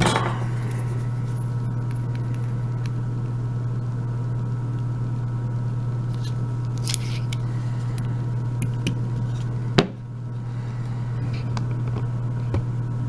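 Steady low electrical hum, with a few small metallic clicks and ticks from a euro lock cylinder being handled and turned, and one sharper click about ten seconds in.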